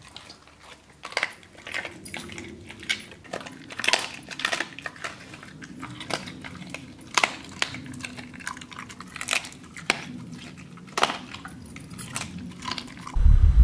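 A husky chewing a chew stick: irregular crunches and clicks of its teeth, a few a second.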